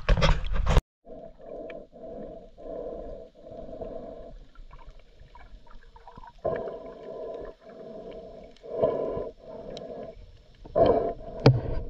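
Splashing at the surface, then muffled underwater water sound from a camera beneath the surface: a run of dull, uneven pulses of water noise. Splashing again about eleven seconds in, as the camera breaks the surface.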